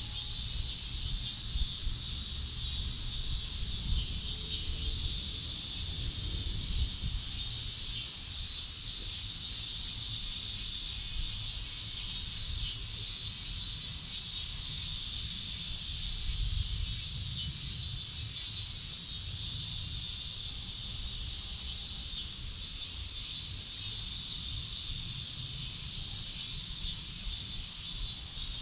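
Steady high-pitched insect chorus with a fine, flickering buzz, with an uneven low rumble underneath.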